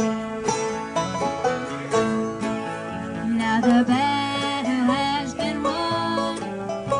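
A live band playing a song, with plucked string instruments prominent in a bluegrass or country style.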